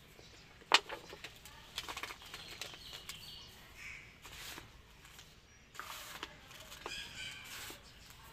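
Dry sand and crumbled cement being sifted, scooped and pressed by hand in a basin: gritty hissing pours with scattered sharp crackles of grit, the loudest about three quarters of a second in.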